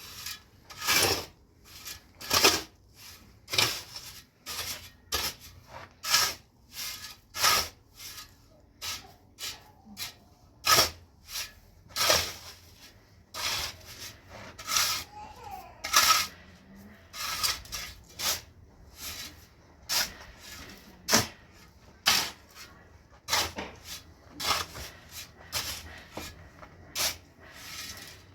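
Wet cement being smoothed by hand, a tool scraping across it in repeated short strokes, about one or two a second.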